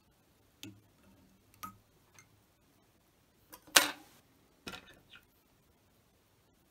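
A handful of separate light clicks and knocks from metal fly-tying tools being handled, with the loudest a sharp clack a little before four seconds in.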